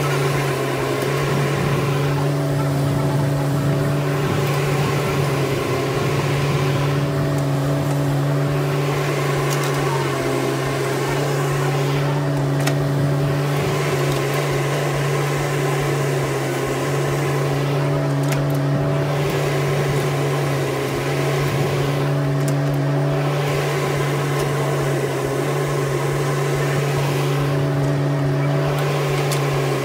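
Bobcat E10 mini excavator's diesel engine running steadily under hydraulic load while the arm digs and dumps soil. The engine's hum sags briefly a few times as the load comes on.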